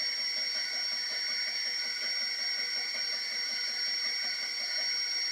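Creality K1 3D printer running with a steady high-pitched whine and hiss, under which the jammed extruder's stepper motor makes a faint, rapid knocking that fades out near the end.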